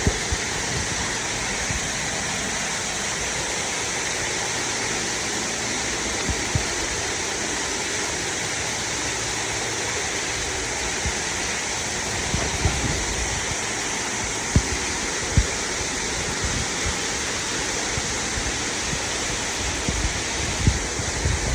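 Waterfall in a cave: a steady rush of falling water, with a few brief low thumps about two-thirds of the way through and near the end.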